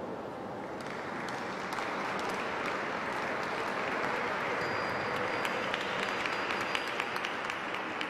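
Audience applause, building about a second in, with many sharp individual claps.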